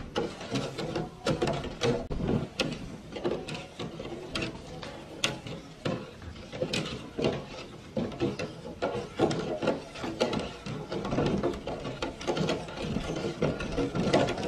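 Flat wooden paddle stirring boiling sugar syrup in an aluminium pot, knocking and scraping against the pot's sides and bottom in an uneven rhythm of a few strokes a second.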